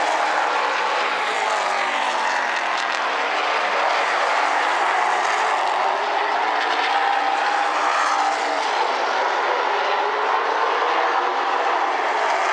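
Several super late model stock cars racing at speed, their V8 engines making a steady, loud drone. The engine pitch rises and falls as the cars go by.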